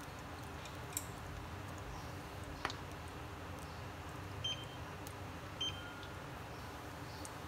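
Steady low hum of an electric hob heating a pan of cooking oil, with a few faint ticks. Two short high beeps sound about four and a half and five and a half seconds in.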